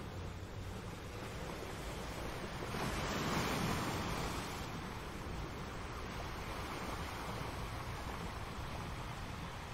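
Steady rushing noise like surf, swelling about three seconds in and easing off again.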